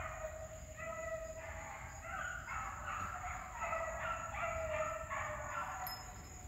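Dogs baying in the distance while running a rabbit's trail: a steady run of drawn-out, pitched bays, each about half a second long, fading near the end.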